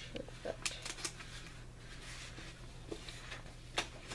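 A hardcover book being handled: soft paper rustling with a few light clicks and taps as it is turned over.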